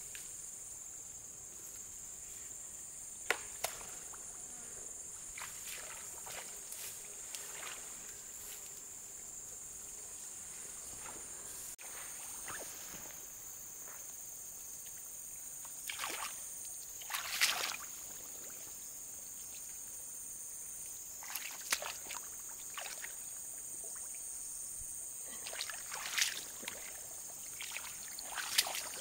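Shallow muddy water sloshing and splashing in short bursts as hands and feet stir it, the loudest splash a little past halfway, over a steady high-pitched insect chorus.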